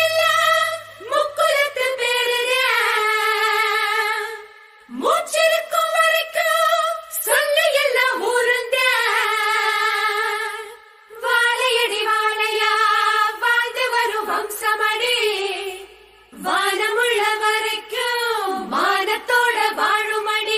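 A high solo voice singing long, drawn-out phrases that waver in pitch, with short breaks between phrases about every five to six seconds and no instrument standing out beneath it.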